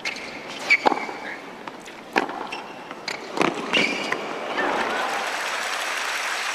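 Tennis rackets striking the ball in a hard-court rally, several sharp hits spaced about a second apart, with short shoe squeaks. About four and a half seconds in, crowd applause swells as the point ends.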